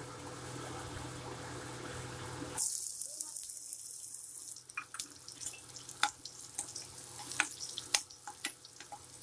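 Chopped onions tipped into hot oil in a pan, setting off a sudden loud sizzle about two and a half seconds in that dies down over the next couple of seconds. After that, a spatula clicks and scrapes against the pan as the onions are stirred.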